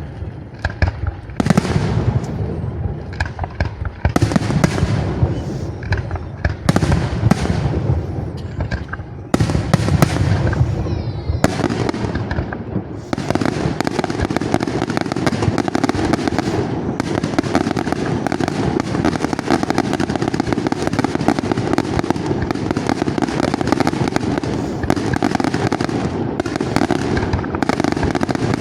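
Aerial fireworks display: a quick series of separate shell bursts and reports, turning about halfway through into a dense, continuous barrage of rapid bangs and crackle.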